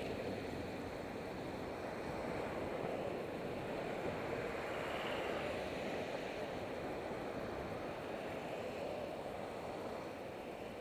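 Steady rush of car traffic and wind on a bicycle helmet camera's microphone, swelling briefly as a car passes close by about five seconds in.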